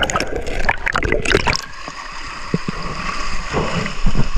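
Mountain stream water running and gurgling, with a flurry of short, sharp splashing sounds in the first second and a half before it settles to a steadier flow.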